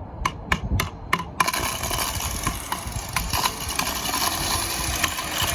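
A few sharp clicks, then about a second and a half in an electric angle grinder's motor starts and runs steadily. The grinder is being tested for worn or sticking carbon brushes.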